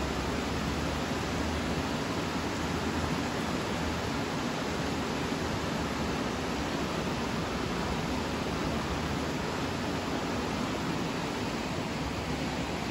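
Steady rush of a fast-flowing alpine river running high over rapids and rocks.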